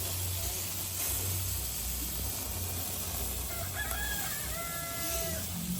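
A rooster crows once, near the end, with a long held final note, over a steady hiss.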